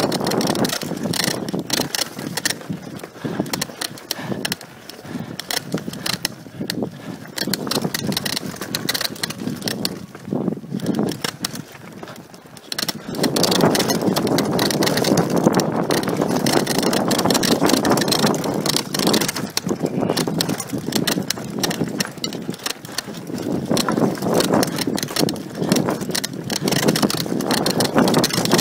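Mountain bike descending a rough dirt downhill trail, picked up by a handlebar-mounted camera: tyres on dirt with the chain and bike rattling and clattering over bumps, under a steady rush of wind noise. It grows louder and rougher about halfway through.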